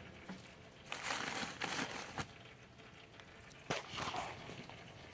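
Faint handling noises: rustling with two sharp clicks, the first a little over two seconds in and the second near four seconds.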